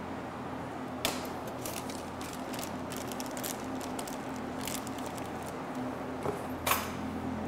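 Plastic packaging and paper crinkling and rustling in short irregular crackles as parts are handled, with a sharper, louder crackle near the end. A steady low hum sits underneath.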